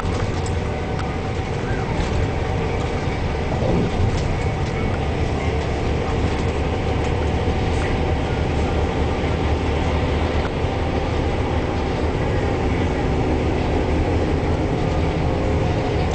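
Neoplan Centroliner double-decker bus cruising at steady speed on an expressway, heard inside the cabin: a constant engine drone and road noise with a few faint rattles.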